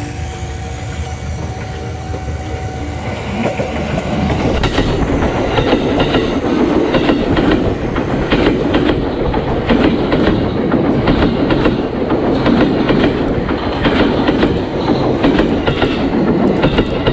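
Battery-powered toy train running on plastic track, its wheels and wagons clattering in a rapid stream of small clicks over the track joints. It grows louder about four seconds in.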